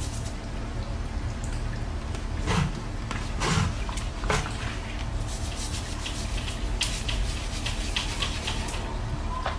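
A bicycle being washed by hand: a few wet swishes and splashes, then a sponge-brush scrubbing the crank and drivetrain in many short, quick strokes, over a steady low hum.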